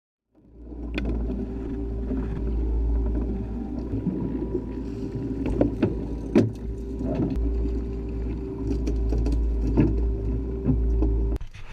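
Boat running under engine power: a steady engine drone with heavy low rumble, broken by several sharp knocks, cutting off suddenly near the end.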